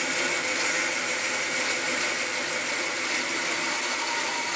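Bandsaw with a coarse 4 TPI skip blade running steadily while cutting a joint into a green oak beam.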